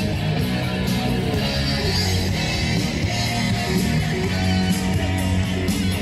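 Music with guitar, playing steadily.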